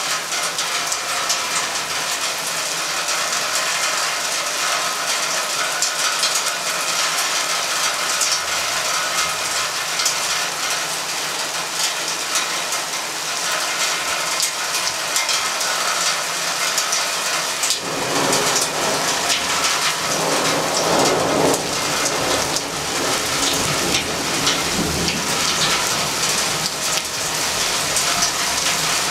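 Thunderstorm: steady rain falling throughout. Partway through, a low thunder rumble comes in and dies away over several seconds.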